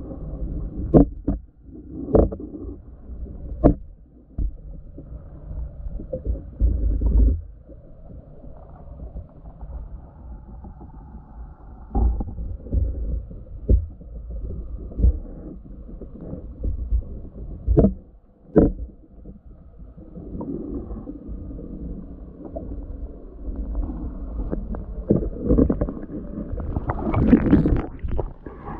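Muffled underwater noise picked up by a submerged camera: a low water rumble with sharp knocks and clicks of handling. Near the end, louder sloshing and splashing as the camera comes up to the surface.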